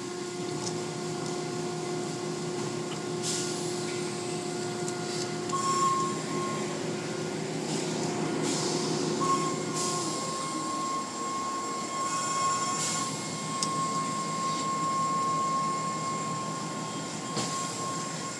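Automatic car wash machinery running: a steady mechanical drone with a constant hum and scattered clicks and knocks. About halfway through, the lower hum drops away and a higher steady whine takes over.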